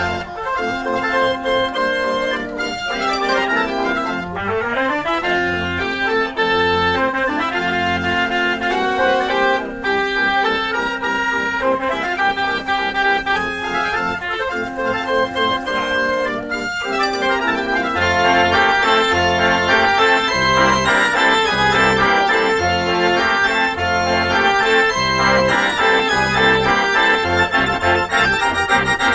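Ruth & Sohn fairground concert organ from Waldkirch, built around 1900, playing a tune on its pipes. A rising run of notes comes about four seconds in, and the bass notes beat regularly, stronger in the second half.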